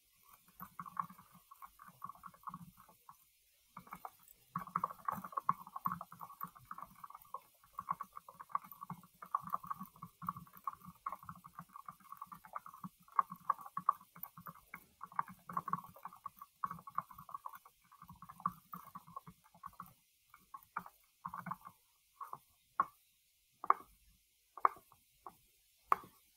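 Choppy, garbled audio from an internet call breaking up into rapid stutters and dropouts, the sign of a failing connection.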